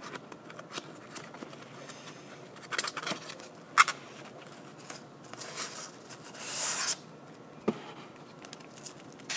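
Cardboard box being opened by gloved hands: scattered scrapes and taps of the flaps, with a sharp snap about four seconds in. Near the end comes a longer scrape as the white foam insert is drawn out of the box.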